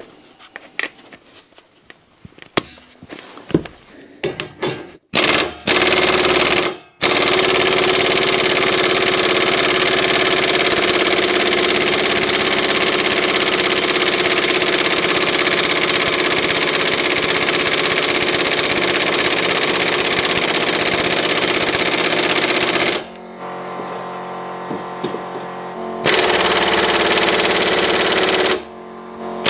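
Pneumatic impact wrench hammering on a seized suspension bolt that will not come undone. A short burst about five seconds in, then a long run of about sixteen seconds, and after a pause another run of a couple of seconds near the end.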